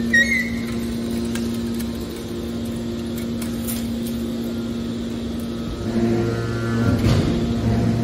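Hydraulic power unit of a Y81T scrap metal baler running with a steady hum while the side-ejection ram pushes a compressed bale of scrap out. About six seconds in, a deeper hum joins and the sound grows louder as the hydraulics take load. There is a brief high chirp near the start.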